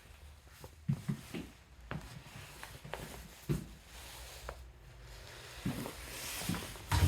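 Scattered light knocks and thumps, about eight in all and spread unevenly, over faint room tone in a small, empty room.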